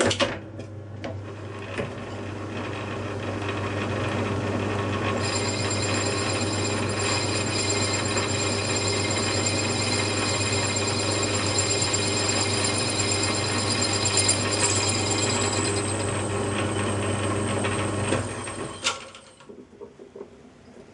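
Metal lathe starting up and running with a steady hum as a tool faces the rear of a small cast flywheel. From about five seconds in, the cut adds a high, steady whining ring. Near the end the motor is switched off and the lathe runs down.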